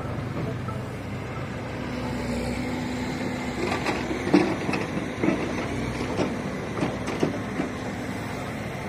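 Tractor engine running steadily as it pulls a heavily loaded straw trailer, with several sharp knocks and clanks in the second half.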